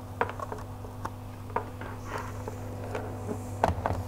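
Light clicks and knocks of a laptop and HDMI cable being handled and connected, a few at a time, with a cluster of knocks near the end as the laptop is set down on the desk. A steady low hum runs underneath.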